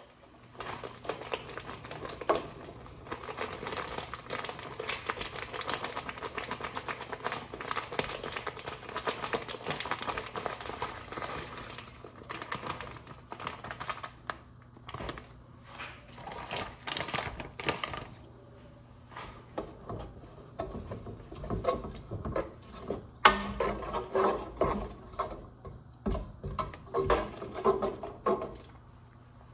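Plastic packaging crinkling and rustling as its contents are shaken out into a cooking pot, dense at first and then in separate bursts, with one sharp knock about three-quarters of the way through.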